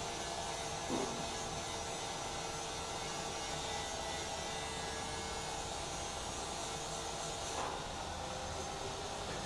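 A steady machine hum holding a few fixed tones, with one short knock about a second in.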